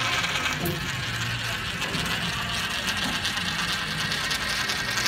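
Coins rolling fast around the narrow bottom of a coin vortex funnel, making a steady, rapid rattling whir: the last tight spirals just before they drop through the centre hole.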